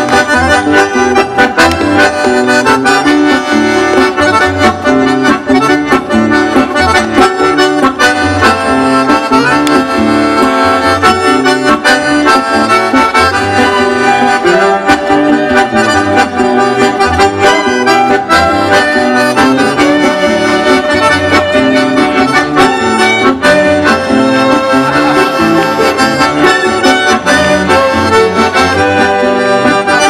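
Live instrumental ensemble music led by an accordion, with acoustic guitars and bowed strings (violin and cello) accompanying, playing continuously over a steady rhythmic bass line.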